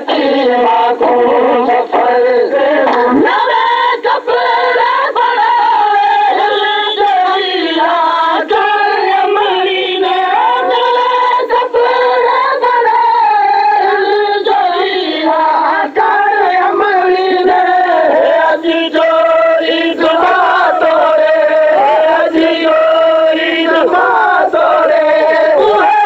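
A noha, a Shia lament, sung without a break, one melodic line flowing into the next.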